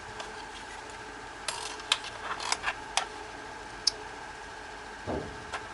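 Handling noise from two gold UHF wireless microphones being picked up and held together: a scatter of light clicks and taps from their metal and plastic bodies, then a dull knock near the end, over a faint steady hum.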